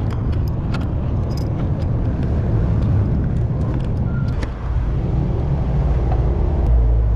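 A steady low mechanical rumble of an engine-like motor, with scattered light clicks of metal on metal.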